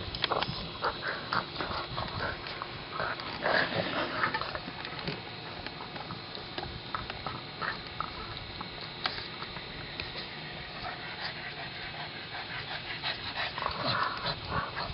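A pug and a mixed-breed dog at play close to the microphone: a run of short, noisy dog sounds, busiest in the first few seconds and again near the end.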